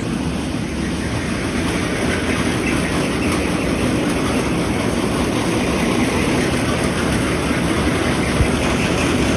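Seed cleaning machinery running steadily with a loud, dense mechanical noise while cleaning rough blazing star seed.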